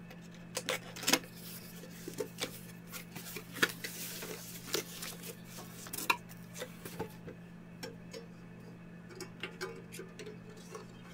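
Unboxing handling noises: cardboard box flaps and a packing-foam sheet rustling and sliding, with scattered light clicks and knocks as the small steel mini toolbox and its lid are handled. A steady low hum runs underneath.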